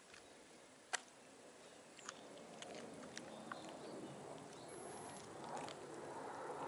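Cats grooming and shifting close by: small scattered clicks and ticks, one sharp tick about a second in, over a soft rustling hiss that grows louder from about two seconds in.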